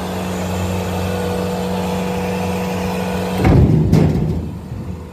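Bobcat T190 compact track loader's diesel engine running steadily while it carries a heavy log section on its forks. About three and a half seconds in comes a loud, low thump, and then the sound goes quieter and dull for about a second.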